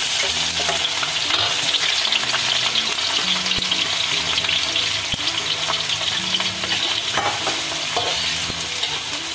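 Sliced shallots and garlic sizzling hard in hot oil in a wok, a steady loud crackling hiss, while a metal spatula stirs them and clicks against the pan a few times.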